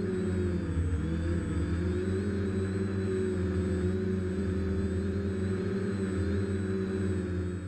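Home-built Aeroquad quadcopter's four electric motors and propellers droning steadily, heard from the camera on board. The pitch dips briefly about a second in, then returns and holds steady.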